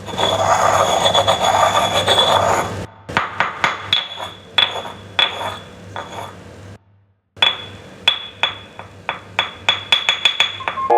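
Irregular series of sharp clinking taps, each with a short bright ring, several a second. It follows a dense noisy texture in the first few seconds and is broken by a moment of silence about seven seconds in.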